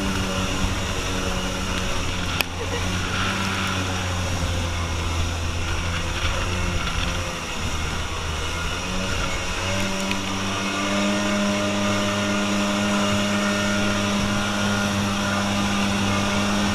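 Kawasaki Jet Mate jet boat's two-stroke engine running at speed, with water spray rushing along the hull. The engine dips briefly a little past the middle, then holds a steady drone.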